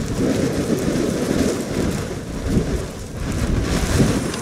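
Gusty wind buffeting the microphone: a rough rumble that swells and eases, over a steady hiss of wind and drizzle.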